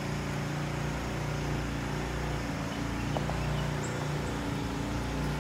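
Steady low engine hum, even throughout, over faint outdoor background noise.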